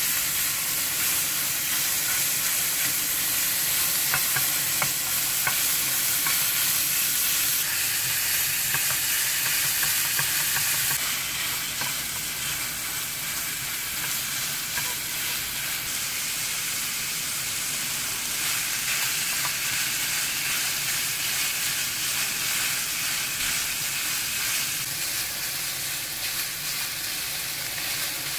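Minced beef sizzling in a nonstick frying pan while a silicone spatula stirs and breaks it up. The sizzle eases a little about eleven seconds in, with sliced onion and shiitake now frying in the pan too.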